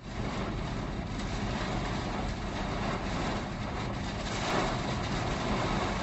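Steady rushing noise of storm wind and road noise from a vehicle driving on a highway, with a low rumble beneath it.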